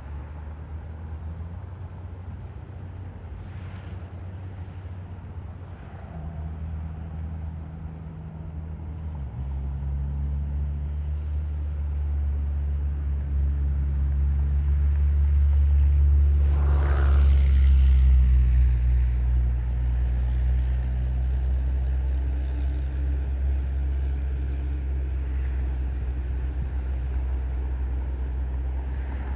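A motor's low, steady drone that shifts up in pitch about a third of the way in and grows louder to a peak just past the middle. A brief rushing noise comes at the loudest point, then the drone eases slightly.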